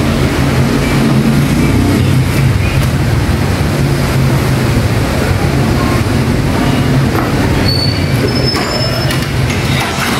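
Steady low mechanical hum and rumble throughout, with a few faint metallic ticks in the second half.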